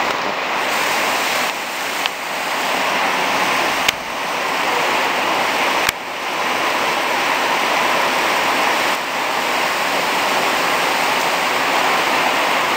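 Torrential rain pouring down in a steady, dense hiss. Two brief sharp clicks break in about four and six seconds in.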